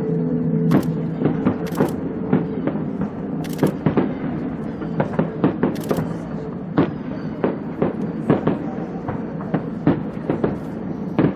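Fireworks display: shells bursting in an irregular run of sharp bangs and cracks, sometimes several in a second.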